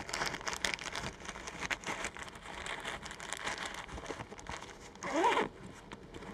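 Nylon camera backpack being handled: fabric rustling and crinkling with light knocks as items are pushed into a pocket, and a brief louder rasp about five seconds in.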